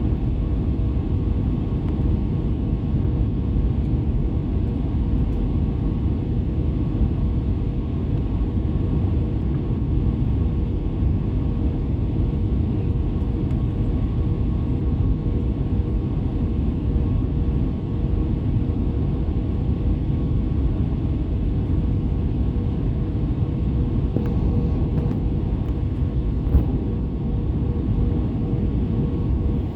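Airbus A320 cabin noise on final approach: a low, steady engine and airflow noise with a faint constant tone.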